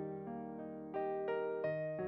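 Background music: a keyboard melody of single sustained notes, a new note every third of a second or so.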